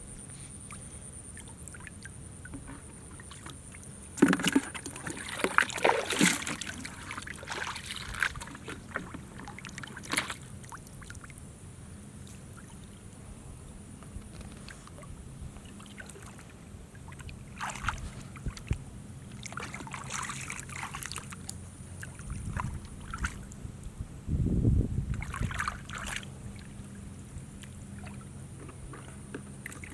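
Water splashing and sloshing in uneven bursts, loudest about four to seven seconds in and again near the end, over a steady high whine.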